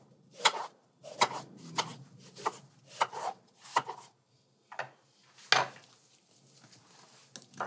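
Chef's knife slicing through peeled cantaloupe flesh and knocking on a wooden cutting board, in a run of irregular cuts about every half second. The cuts stop about five and a half seconds in, leaving faint handling of the cut pieces.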